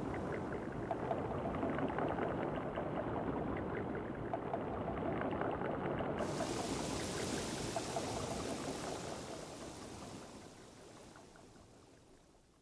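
Ambient outro of a spoken-word track: a dense, watery hiss full of fine crackles, with a brighter high hiss coming in about six seconds in. The whole texture fades away over the last few seconds.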